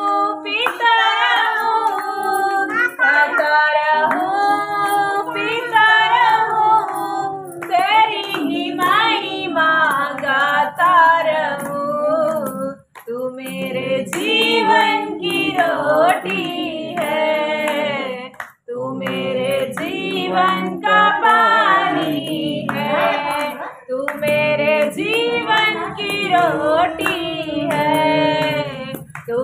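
Hindi Christian devotional song sung over a light percussive beat; the singing breaks off briefly twice, about 13 and 18.5 seconds in.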